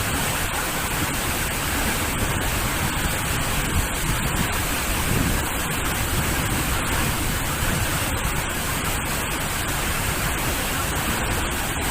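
Steady rushing roar of a waterfall, falling water sounding evenly without a break.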